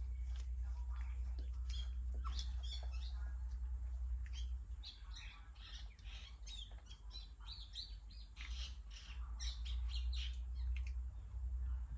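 Newborn puppies squeaking and whimpering in quick high-pitched chirps while nursing, busiest in the middle, over a steady low hum.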